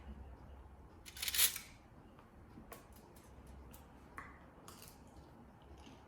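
Close-miked eating sounds: scattered small mouth clicks, with a short noisy burst about a second in and a smaller one near five seconds.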